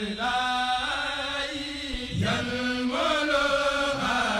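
Chanted singing: a voice holding long, sustained notes that shift pitch a few times, with light music behind it.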